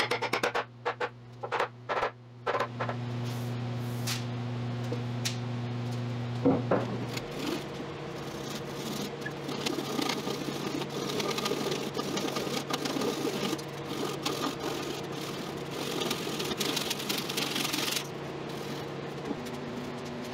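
An electric power tool's motor running steadily with a buzzing, rattling noise, after a few sharp clicks at the start.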